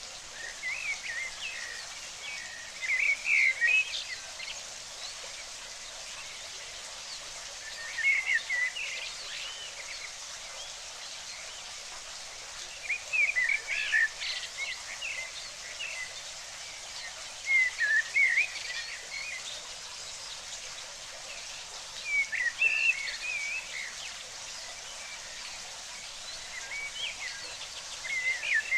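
Steady rush of running water with short bursts of bird chirping, each a second or two long, coming about every four to five seconds.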